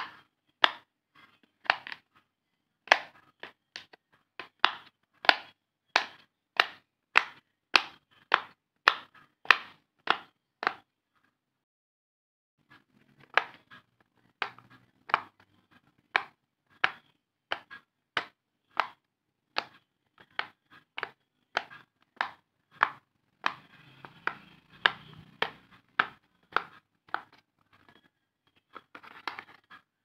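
Silicone pop-it fidget toy bubbles pressed one after another, each giving a short sharp pop, about two a second. The popping stops for about two seconds near the middle, then resumes, with some handling noise of the toy a little later.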